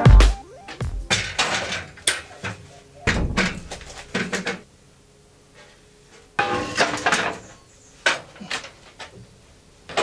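A string of knocks and thumps from a person's footsteps and a wooden ladder being climbed and handled. The knocks come in a run of about four seconds, stop for a couple of seconds, then come again as a shorter cluster with a few scattered knocks after it.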